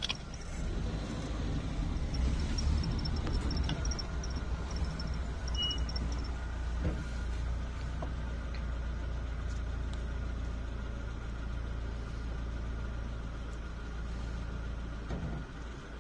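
Car engine running low and steady at idle, heard from inside the cabin.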